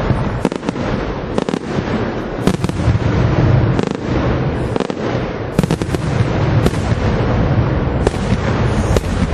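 Aerial fireworks shells bursting in rapid succession: many sharp bangs close together over a continuous low rumble.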